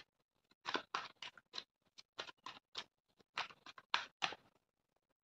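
A deck of tarot cards shuffled by hand: a run of soft, irregular card clicks and flicks that stops about four and a half seconds in.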